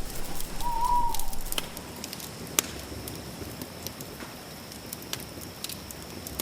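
Campfire crackling, with scattered sharp pops, the sharpest about two and a half seconds in. A single short bird call sounds about a second in, over a faint steady high tone.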